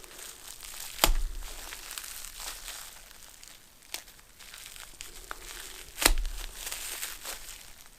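Packaging being handled and crumpled during unboxing, a crinkling rustle broken by two sharp knocks about one second and six seconds in.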